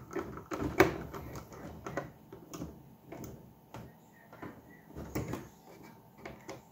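Scattered small clicks and light knocks of a driver tool and hands working screws into the plastic body and backing plate of an RC truck while the rear light bar is fastened. The loudest click comes about a second in.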